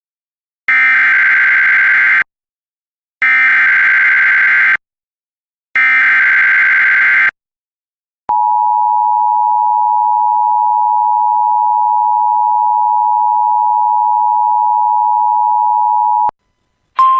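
NOAA Weather Radio emergency alert: three short buzzing bursts of SAME digital header data, then a steady alert tone near 1 kHz held for about eight seconds that cuts off abruptly. This sequence signals that a warning message follows.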